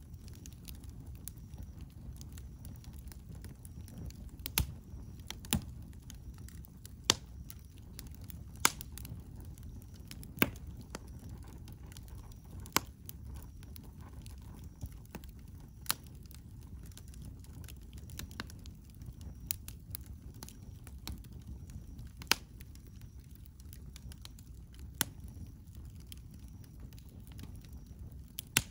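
Wood campfire crackling: about ten sharp pops at irregular intervals of a second or a few seconds, over a low steady rumble.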